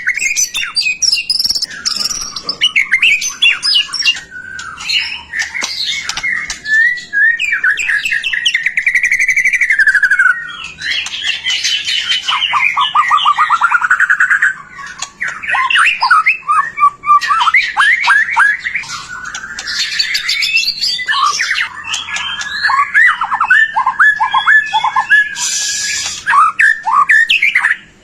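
White-rumped shama (murai batu) in full, continuous song: a loud, varied stream of whistles, fast trills and sweeping glides. In the second half it breaks into strings of short, sharp, rapidly repeated notes.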